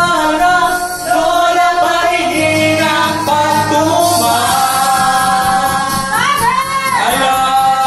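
Karaoke singing: a man sings a Tagalog song into a microphone over a music backing track, ending with a long wavering held note about six seconds in.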